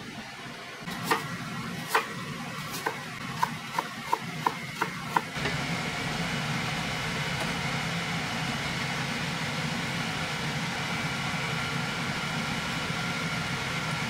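Kitchen work: about nine sharp knocks, coming faster toward the middle, then a steady rushing noise with a faint hum that sets in about five seconds in.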